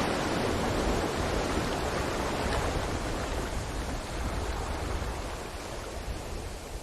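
Ocean surf: the wash of a breaking wave slowly fading as the water draws back.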